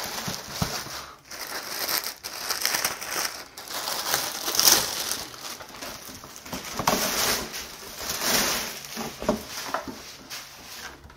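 Clear plastic wrapping crinkling and rustling on and off as a model-airplane wing is slid out of it and handled.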